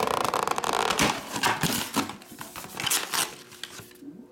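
Clear plastic shrink wrap being torn off card boxes and crumpled, crinkling densely at first, then in separate crackles that stop shortly before the end.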